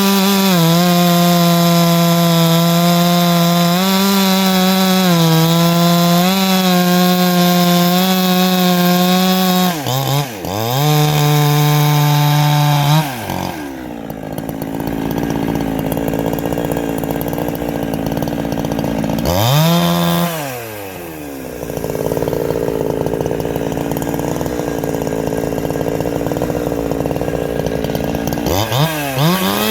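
Two-stroke chainsaw fitted with a shotgun pipe muffler, running loud at high revs with a brief dip about 10 seconds in, then dropping to idle about 13 seconds in. It gives one short rev about 20 seconds in and starts revving again near the end.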